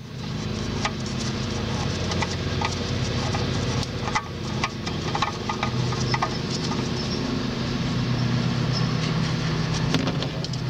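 A steady engine hum, with a few small metallic clicks as the Fumoto drain valve is unscrewed by hand from the oil pan.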